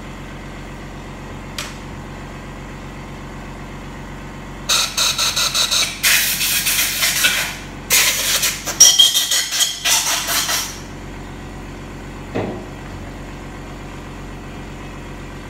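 Compressed air hissing in several bursts from an air nozzle pushed into the oil passage of a Mercedes-Benz 722.9 7G transmission clutch drum during an air compression test. The test checks that the clutch piston applies and does not leak. A steady machine hum runs underneath, and there is a short knock near the end.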